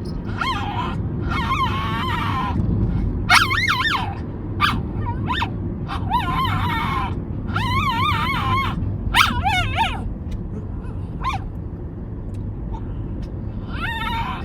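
Pet dog giving a string of high, wavering whining cries and yips, its unusual cry rising and falling in pitch, one call every second or so and thinning out toward the end, over a steady low rumble.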